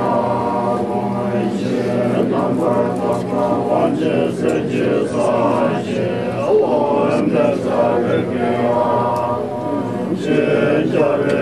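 Tibetan Buddhist monks chanting a prayer together in unison, a dense blend of low male voices over a sustained drone.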